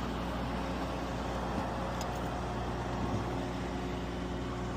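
Truck engine idling steadily, an even low hum that does not change.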